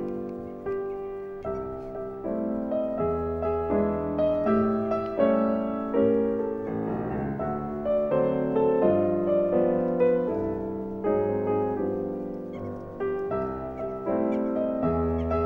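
Piano music: notes struck one after another over lower chords, each one fading out.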